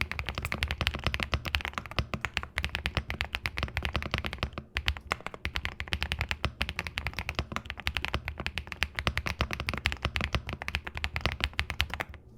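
Fast, continuous typing on a MCHOSE G75 Pro 75% mechanical keyboard, a dense stream of deep, thocky keystrokes close to the microphone, with a brief pause about a third of the way through.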